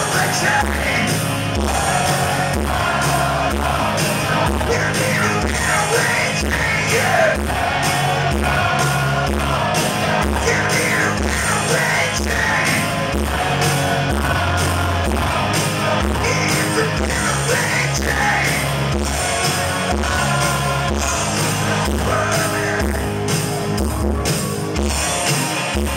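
Live hard rock band playing loud: electric guitars, bass and drums, with a man singing lead vocals into a handheld microphone.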